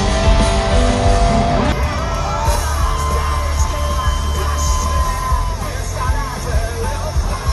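Live rock band playing with a voice singing, mixed with yelling. About two seconds in the sound changes abruptly, like a cut to other footage, and continues with a high wavering vocal line over the band.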